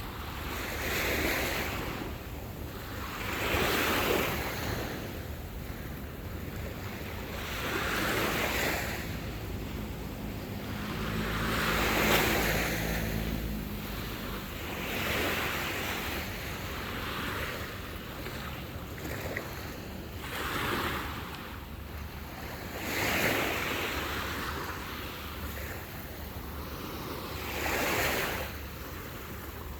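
Small waves breaking on a sandy beach, a swell of surf every three to four seconds over a steady wash, with some wind rumble on the microphone.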